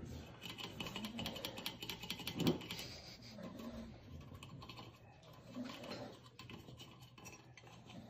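Quiet, rapid light clicks and scratches at a tabletop, dense for the first few seconds and sparser after, with a few soft, low murmurs in between.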